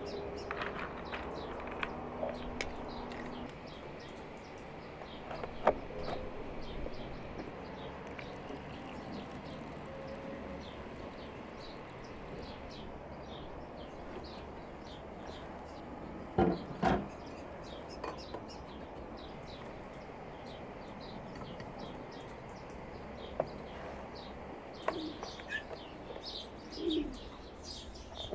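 Small birds chirping steadily, with a few sharp knocks or clinks, the loudest about a sixth of the way in and two together just past halfway. Pigeons coo near the end.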